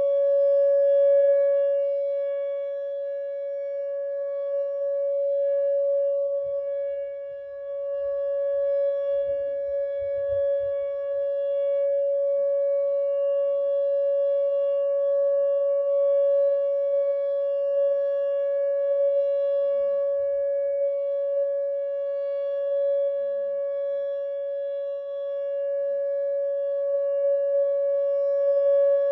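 Whelen WPS 2909 electronic outdoor warning siren sounding a steady tone during a test. The pitch holds level while the volume slowly swells and fades.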